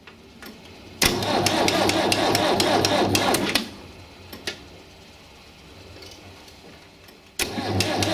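Electric starter cranking the cold UTB-Fiat 445 DT tractor's four-cylinder diesel at −15 °C, with a rhythmic chug: one crank of about two and a half seconds that stops without the engine catching, then a second crank beginning near the end.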